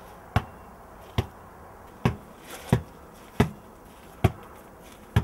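Basketball dribbled on hard ground: seven short bounces at a fairly even pace, a little more than one a second.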